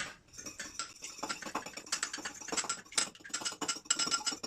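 An egg being beaten with a fork in a bowl: a fast run of light clicking taps of metal on the bowl.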